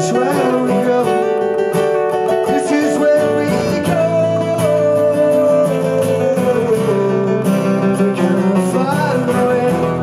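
Two acoustic guitars playing together, strummed chords under picked lines. About four seconds in, a long wordless sung note enters and slides slowly down in pitch.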